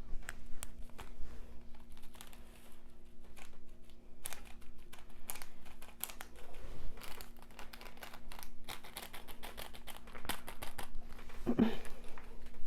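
Plastic food packaging crinkling and rustling close to the microphone, in a dense run of sharp crackles. A short low throat sound comes near the end.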